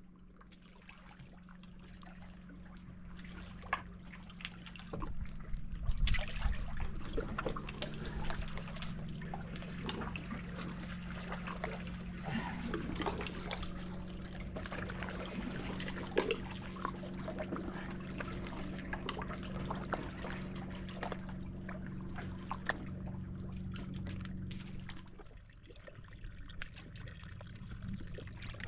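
Water sloshing and trickling, with scattered small splashes and knocks, over a steady low hum that stops near the end.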